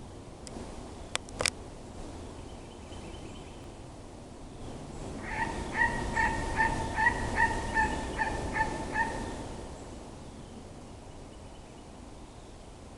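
An animal call: a run of about ten short, evenly spaced notes on one pitch, about two and a half a second, starting about five seconds in and lasting some four seconds.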